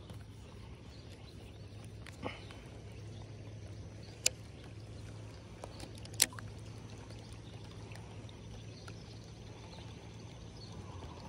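Three sharp clicks of fishing tackle being handled in a kayak, spread a couple of seconds apart, the middle one the loudest, over a faint steady low background.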